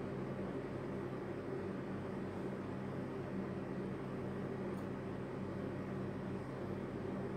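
Steady low hum over an even hiss, like a fan or appliance running in a small room.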